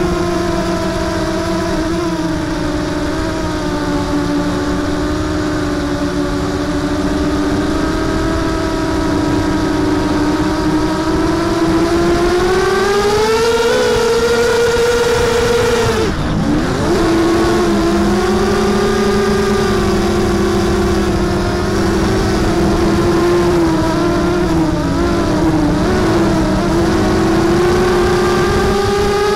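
Mini racing quadcopter's Cobra CM2204 2300 kV brushless motors and propellers whining steadily, heard through the onboard camera. The pitch climbs about halfway through, drops sharply for a moment as the throttle is chopped, then comes back up and holds.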